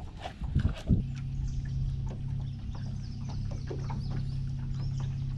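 A few knocks and clicks, then about a second in a bass boat's electric trolling motor starts and runs with a steady low hum.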